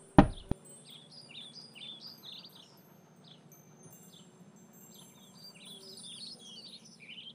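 Cartoon sound effect right at the start: a sudden loud falling swish ending in a thump, with a click a moment later. After it, a background of small birds chirping over a faint steady hum.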